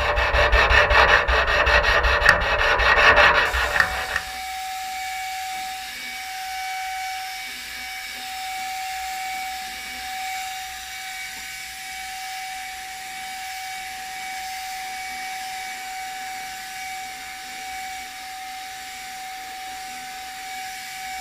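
Hand sanding on a steel door panel, loud and scratchy, for about the first four seconds; then a handheld electric paint spray gun runs steadily, one even tone over a light hiss, as it sprays primer onto the door.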